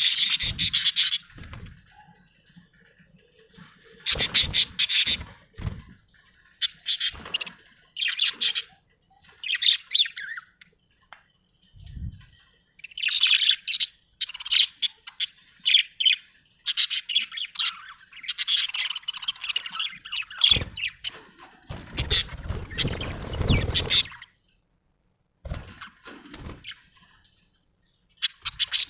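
Budgerigar chirping and chattering in quick bursts separated by short pauses. About two thirds of the way in, a low rustling noise runs for a couple of seconds under the chirps.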